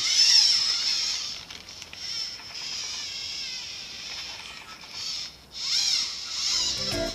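Xiaomi Mitu building-block robot playing its "open fire, strafe" sound effect through its small speaker: a high, warbling electronic chatter that breaks off briefly about five seconds in.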